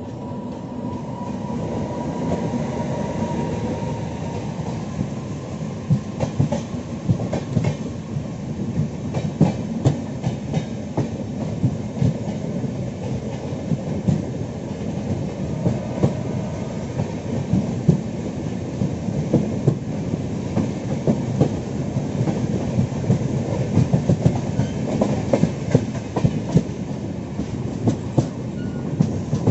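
Passenger express train passing close by, a steady rumble with the wheels clattering over rail joints in many irregular clicks.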